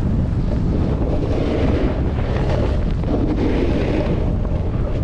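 Wind buffeting the microphone of a skier's camera while skiing fast downhill, over the hiss of skis sliding on groomed snow, which swells a couple of times.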